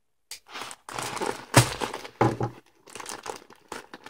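Plastic insulated shipping mailer being torn open and crumpled by hand: a run of irregular crinkling rustles and rips, loudest about a second and a half in.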